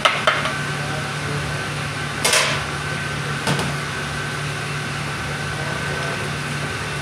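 Steady hum of commercial kitchen machinery. Two sharp metal clanks come right at the start as a pan pizza is tipped out of its metal pan with a pan gripper, then a short scraping rush about two seconds in and one more knock a second later.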